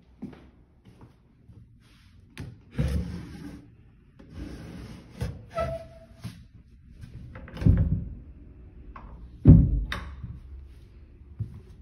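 Drawers of a built-in wooden cabinet being pulled and pushed by their metal handles: a sliding rattle about three seconds in, a short squeak near six seconds, then heavy thunks near eight and ten seconds, the last the loudest.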